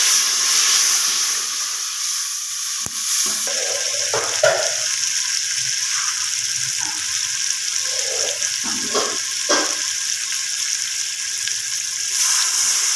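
Onion, ginger-garlic and ground-spice masala sizzling steadily in hot oil in a metal pot as it is fried (bhuna), with a few knocks and scrapes of a steel spoon stirring it. The sizzle is loudest at the start, eases, then swells again near the end.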